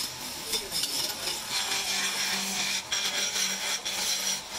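Wood lathe turning: a hand chisel cutting into a spinning wooden spindle, a continuous rasping, scraping hiss. A low steady hum joins it about halfway through.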